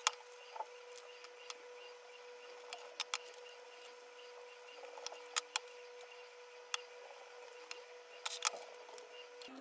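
Light handling sounds: scattered soft clicks and taps as sticker labels are peeled and pressed onto candle vessels and a candle is set down on a stone tabletop, with a small cluster of taps near the end. A faint steady hum runs underneath.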